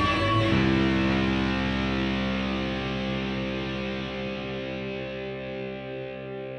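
Background music: a guitar chord is struck about half a second in and rings on, slowly fading.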